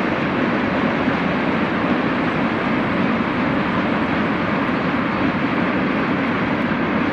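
Freight train of open-top wagons, hauled by two EU07 electric locomotives, rolling past with a steady noise of wheels on rails.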